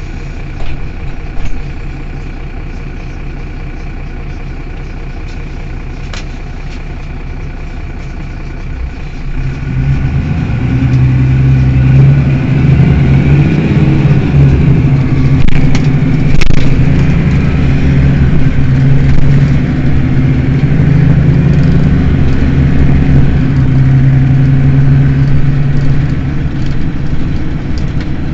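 Mercedes-Benz Citaro city bus engine idling steadily, with a few short knocks about a second in. About nine seconds in the engine picks up and runs much louder under load as the bus pulls away, wavering in pitch for a few seconds before settling into a steady run.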